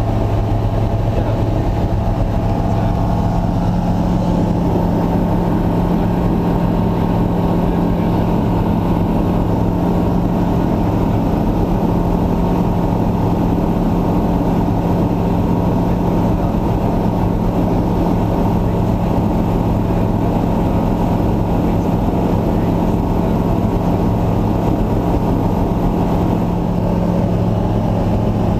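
An engine running steadily at constant speed, a loud unchanging drone with a deep steady hum.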